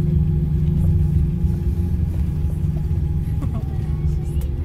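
Cabin noise of an Airbus A340-300 taxiing: a steady low rumble from its four CFM56-5C4 engines and rolling gear, with a steady hum over it.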